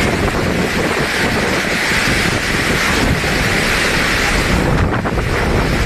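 Strong wind blowing hard and buffeting the microphone: a loud, steady rush with a low rumble underneath.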